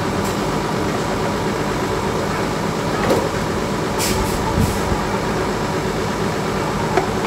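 A steady mechanical drone, with a few light metallic clicks and taps of hand work on engine parts about three seconds in, in a quick cluster around four seconds, and once near the end.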